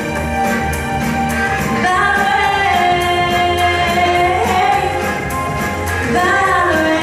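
A young female vocalist singing a pop song into a handheld microphone over backing music with a steady beat, holding long notes with bends in pitch.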